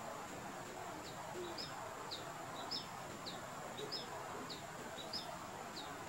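Pileated finch singing its territorial song: a series of short, high, hooked chirps at about two a second, some of them doubled, starting about a second in.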